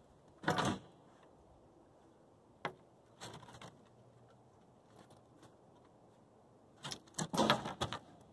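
Dogs pawing and nosing at wooden deck boards: a few short scrapes and scuffles with a sharp knock, then a denser flurry of them near the end.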